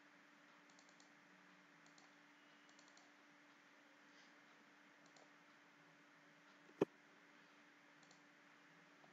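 Faint computer mouse clicks and keyboard keystrokes over a low steady hum, with one sharp, much louder click about seven seconds in.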